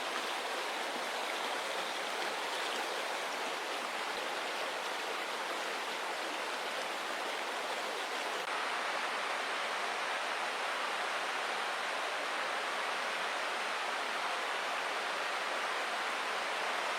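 Steady, even rushing noise of water, unbroken throughout.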